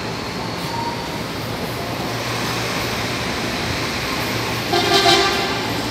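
Electric commuter train running at a station platform, a steady rumble and hiss. Near the end a short, louder pitched tone sounds for about half a second.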